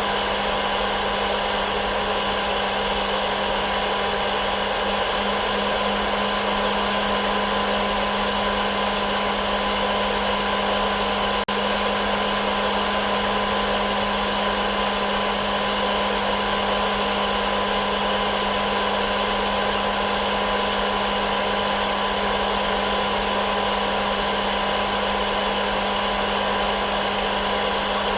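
Hair dryer running steadily as white noise: an even rush of air over a constant motor hum and whine, with one momentary break about eleven seconds in.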